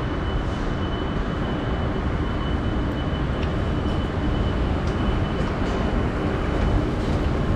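Store escalator running: a steady mechanical rumble, with a faint high steady whine through the first half.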